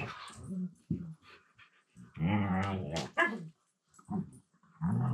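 Siberian husky play-growling and grumbling in a low-pitched voice while wrestling with another husky: a few short grumbles, then a longer drawn-out one about two seconds in, with a sharp click near the middle.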